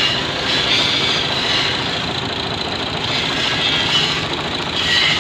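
New Holland Ghazi (Fiat) tractor's three-cylinder diesel engine idling steadily.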